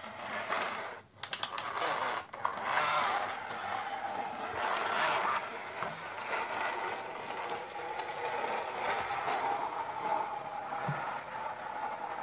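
Plastic toy excavator pushed by hand across the floor, its tracks and wheels running with a steady mechanical noise; a few sharp clicks about a second in.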